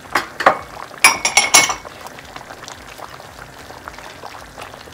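A glass bowl clinks sharply four or five times in quick succession about a second in, as langostino lobster is emptied from it into a pot of boiling gumbo. Steady bubbling of the gumbo runs underneath.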